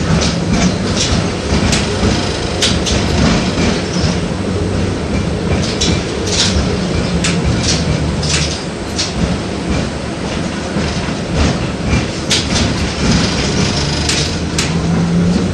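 LVS-86K tram running between stops, heard from inside the car: a steady rumble and low motor hum, with irregular clicks and rattles from the wheels on the track and the car body.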